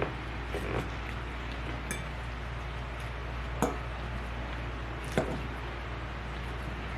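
Eating sounds: a few short, light clicks of a utensil against a dish, four in all, spaced a second or more apart, over a steady low background hum.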